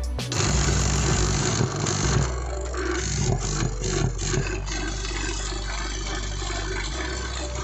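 Robinair Cooltech 1/2 hp vacuum pump's electric motor and pump switched on and running. It starts about a third of a second in, runs unevenly for the first few seconds, then settles into a steady running sound.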